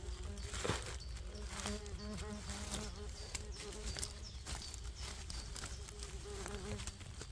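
A flying insect buzzing, a low hum that wavers in pitch and stops shortly before the end, over the crackle of dry leaves and twigs being pushed aside by hand.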